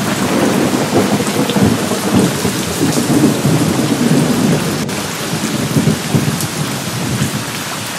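Steady rain with a long roll of thunder that swells right at the start, rumbles on unevenly for several seconds and dies away near the end.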